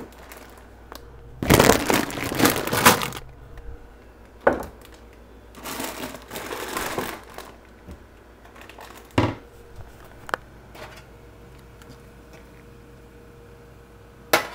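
Rustling and crinkling of food packaging as things are moved about in a kitchen cabinet, loudest about two seconds in and again more softly around six seconds, with a few sharp knocks of items being set down, over a faint steady hum.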